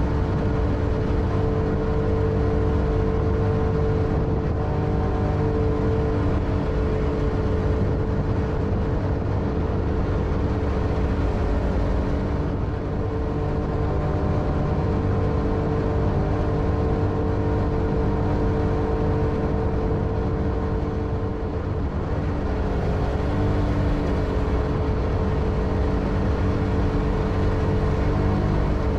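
Jet boat engine running steadily underway: a constant drone of several steady tones over a low rumble, easing off slightly twice.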